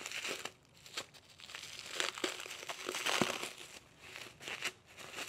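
Plastic bubble wrap crinkling and rustling as it is pulled off a part by hand, in irregular crackles that are busiest around the middle.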